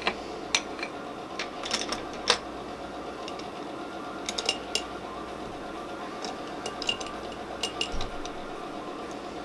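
Scattered light clicks and taps of makeup items being handled, over a steady low background hum.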